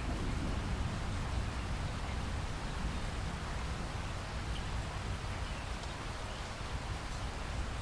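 Steady rain, an even hiss with a low rumble underneath and a few faint drop ticks.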